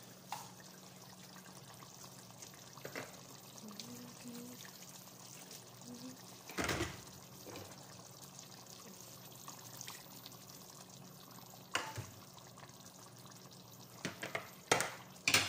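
Chicken curry simmering in a pot on a gas hob, a soft steady bubbling. A brief loud bump comes about six and a half seconds in, and sharp clicks near the end.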